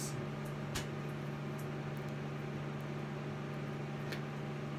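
Steady low hum of a running appliance or fan over a faint hiss, with two faint clicks, about a second in and near the end.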